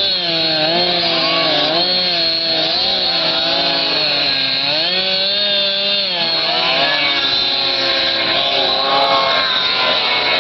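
Ski-Doo Mach Z 800 snowmobile's three-cylinder two-stroke engine being revved, its pitch rising and falling again and again.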